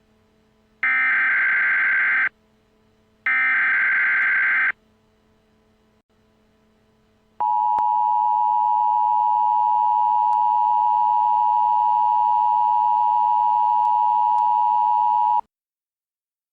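Emergency Alert System SAME header: two short bursts of screechy digital data tones, each about a second and a half long. After a pause of about three seconds comes the steady two-tone EAS attention signal, held for about eight seconds, which then cuts off suddenly.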